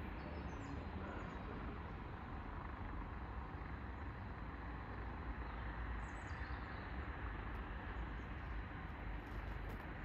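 Steady low rumble of trains moving around a railway station at a distance, with a few faint high chirps.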